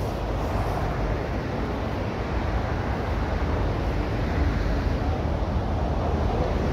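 Steady low rumble of wind buffeting the microphone, with no distinct knocks or splashes.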